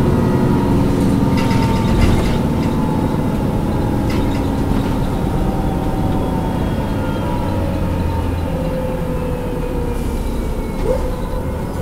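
MAN A23 NG313 articulated city bus's diesel engine idling steadily, with a few light clicks about one and a half and four seconds in.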